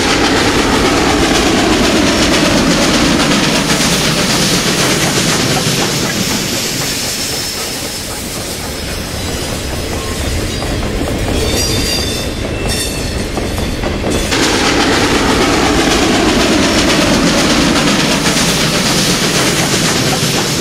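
Western Maryland steam locomotive No. 734, a 2-8-0, working a freight train as it approaches: a steady loud rumble of exhaust and rail noise, easing slightly partway through. A few thin high tones sound just before a sudden change in tone about fourteen seconds in.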